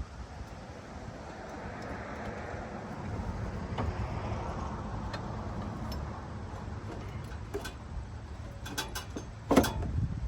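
Steady low rumble with a vehicle seeming to pass, and scattered metallic clicks of hand tools at a Chevy 350 engine's cylinder head, ending in a quick cluster of sharp metal knocks and clanks about nine seconds in.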